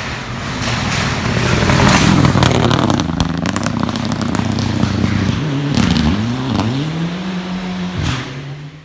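Rally car passing at speed on a gravel stage, its engine revving hard, the pitch dipping and climbing several times through gear changes and lifts. Gravel and stones crackle and scatter under the tyres. The sound cuts off suddenly at the end.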